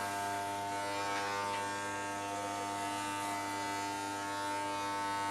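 Corded electric hair clippers buzzing steadily as they are run through the hair on a man's head.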